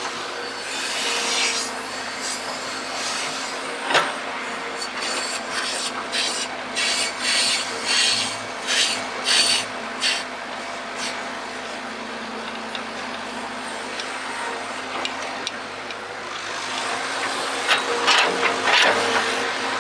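Excavator digging: a steady machine hum under repeated scraping and grinding of the bucket in the ground, in clusters about five to ten seconds in and again near the end.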